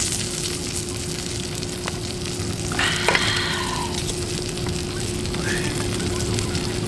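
Pork belly sizzling in a frying pan: a steady crackling hiss, with a brief sharper sound about three seconds in.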